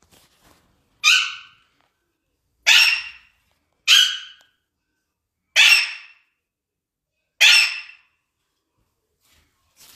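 Alexandrine parakeet giving loud, harsh calls, five in a row, each about half a second long and spaced a second and a half to two seconds apart.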